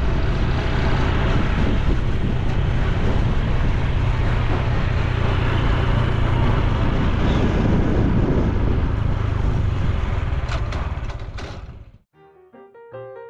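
Honda Super Cub C125's 125 cc single-cylinder four-stroke engine running on the move, mixed with wind and road noise, fading out about eleven seconds in. Soft piano music starts right after.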